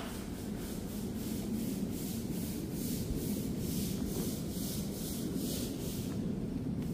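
A stiff brush scrubbing a wet concrete floor in quick, even, repeated strokes.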